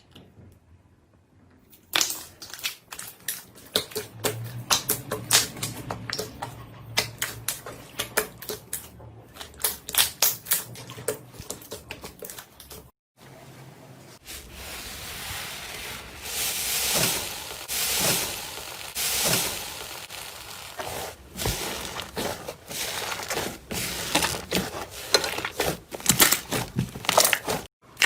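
Slime being squeezed and pressed by hand, making a dense run of sticky clicks, pops and crackles. It stops briefly about 13 seconds in, then carries on with a steadier hiss under the pops.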